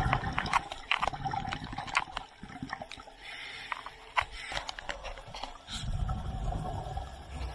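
Underwater sound of scuba regulator exhaust bubbles, gurgling in low rushes with each exhalation, several times over, with scattered sharp clicks.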